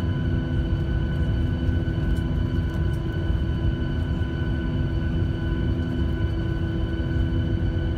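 Boeing 737-800's CFM56-7B turbofan engines running at taxi idle, heard inside the cabin: a steady low rumble with a steady whine of several high tones over it.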